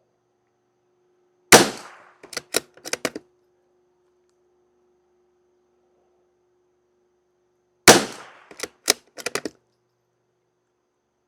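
Two .22 LR rifle shots from a bolt-action Savage Mark II FV firing Norma Tac-22 target ammunition, about six seconds apart. Each shot is followed by a quick run of four or five metallic clicks as the bolt is worked to eject the case and chamber the next round.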